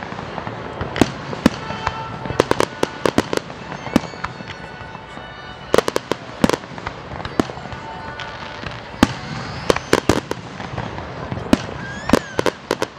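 Aerial fireworks display: shells bursting in a long, irregular series of sharp bangs, some coming in quick clusters of several.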